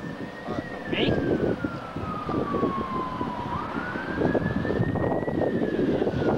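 A siren wailing, one tone rising quickly and then falling slowly, cycling about every four to five seconds, over a low rumbling noise.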